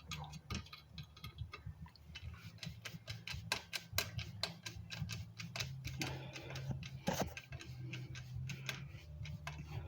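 Ratchet wrench clicking in short runs as a nut is snugged down on a motorized bicycle build, over a steady low hum.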